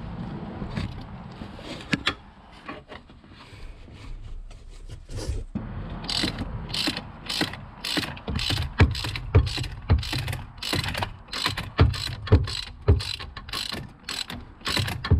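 Hand ratchet on a long extension and socket turning a bolt: quieter scattered clicks at first, then from about six seconds in a regular run of sharp ratchet clicks, about three a second, as the handle is worked back and forth.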